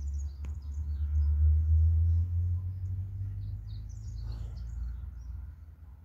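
Small birds chirping in short high notes, a flurry near the start and another about four seconds in, over a steady low rumble that is the loudest sound. A single sharp click about half a second in.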